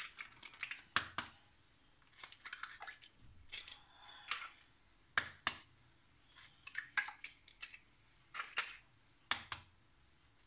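Four eggs cracked one after another into a blender jug: a pair of sharp taps of shell for each egg, with softer crackling of shell between.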